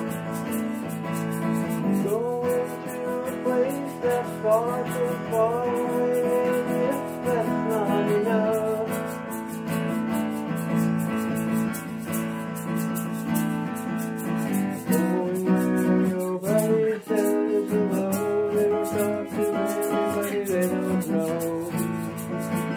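Acoustic guitar strummed in steady chords, with a man singing over it in two stretches, one starting about two seconds in and one about halfway through.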